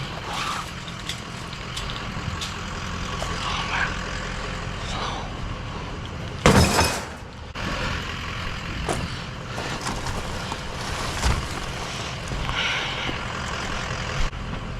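A vehicle engine idling steadily with a low hum, with scattered knocks and clatter of objects being handled, and a loud crash about six and a half seconds in.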